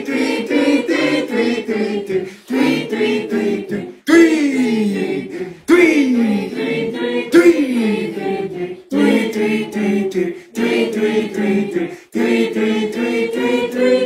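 A group of voices chanting "meow" over and over in quick unison phrases, broken by short pauses. About four, six and seven and a half seconds in come three long, falling drawn-out cries.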